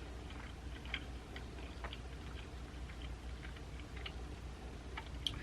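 Faint chewing of a sandwich: scattered small, irregular mouth clicks over a low steady room hum.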